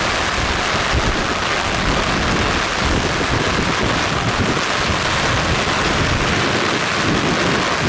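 Typhoon wind and heavy rain making a loud, steady roar, with wind buffeting the microphone in an irregular low rumble.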